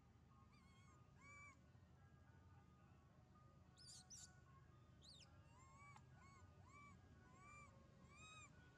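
Faint animal calls: a short, arching, whistled call repeated over and over, and a few quick high chirps about four seconds in.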